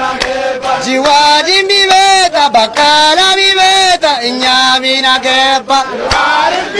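A group of men chanting a song together in long held notes, with a few sharp claps.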